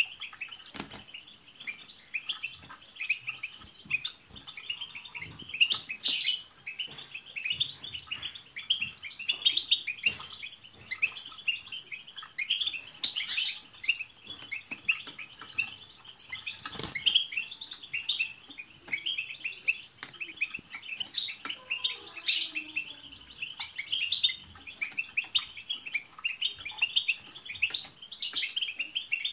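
Several European goldfinches singing together: a fast, unbroken twittering chatter with brief, sharp high call notes every few seconds.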